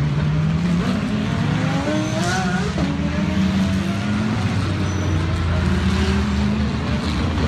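Several GT race cars running past one after another, their overlapping engine notes rising in pitch as they go up through the gears.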